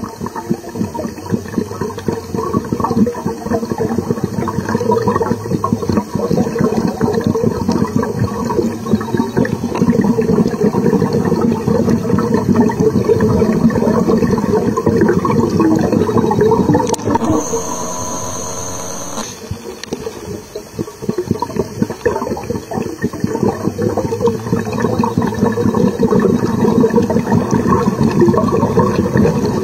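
Underwater bubbling and rushing water, loud and churning. About two-thirds of the way through it gives way for a couple of seconds to a steady hum with a high held tone, then the bubbling returns.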